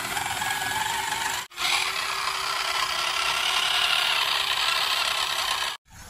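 Remote-control toy excavator's small electric motors and plastic gearbox whirring and rattling as the arm and bucket move. The sound cuts out abruptly about a second and a half in and again near the end.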